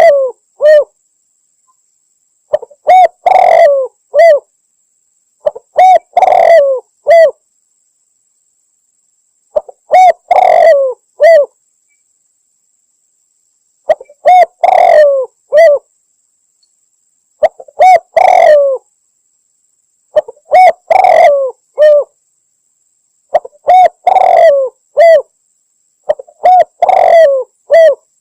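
Spotted dove (tekukur) cooing, a female's call recorded as a hunting lure: a phrase of three or four coos, the middle one longest and falling, repeated about every three seconds with silence between.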